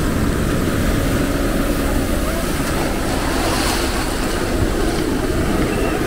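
Ocean surf breaking and washing up the sand in a steady rush, with wind buffeting the microphone in a low, uneven rumble.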